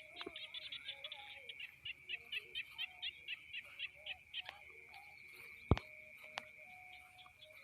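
Outdoor animal ambience: a steady high insect drone, with a run of quick chirps at about four a second through the first half. A single sharp click comes near the end.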